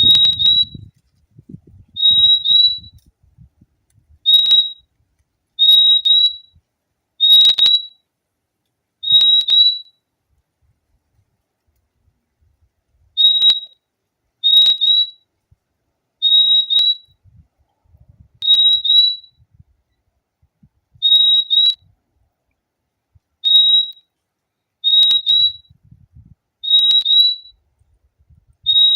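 Purple-throated euphonia (fim-fim) calling: a high, clear whistled call, mostly two quick notes, repeated about fifteen times every second and a half to two seconds, with a pause of about three seconds near the middle.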